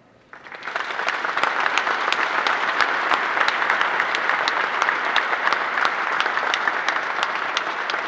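Audience applauding, starting suddenly just after the start, with sharp individual claps close by standing out over the general clapping; it begins to die down near the end.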